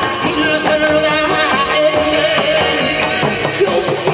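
Amplified pumba folk singing through a microphone, long held notes with a wavering vibrato, over Korean barrel drums (buk) and cymbal.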